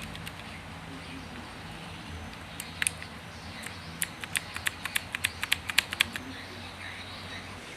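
Aula mechanical gaming keyboard with clicky blue switches being typed on: a couple of sharp key clicks about three seconds in, then a quick run of about a dozen clicks over two seconds. A faint low hum sits underneath.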